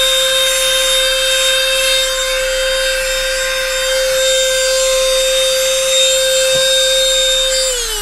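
Portable handheld vacuum cleaner running with a steady whine over the rush of air, sucking at car floor carpet through its crevice nozzle. Near the end it is switched off and the whine falls in pitch as the motor winds down.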